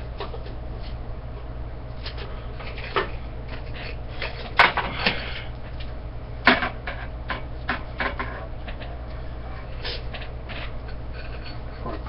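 Rigid antenna parts, its loop-shaped metal rod elements, clicking and clattering as they are handled and fitted together by hand, with two louder knocks about four and a half and six and a half seconds in. A steady low hum runs underneath.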